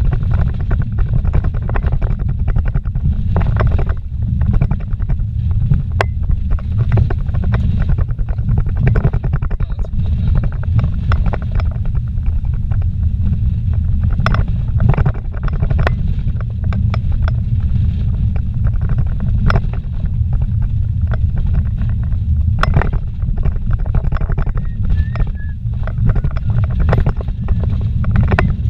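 Vehicle driving fast on a dirt road, heard from inside the cab: a steady low rumble of tyres and running gear, with frequent sharp knocks and rattles as it goes over the rough surface.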